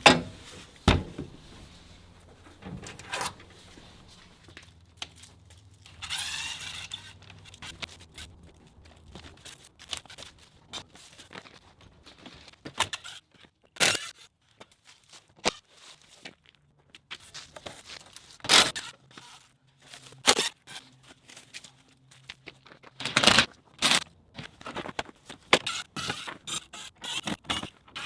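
Irregular clatter of hand tools and materials being handled: scattered knocks, clinks and thunks, with a longer scrape about six seconds in.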